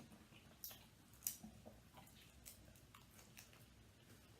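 Faint chewing and eating sounds from a person eating food, with a few soft mouth or utensil clicks, two sharper ones about a second in.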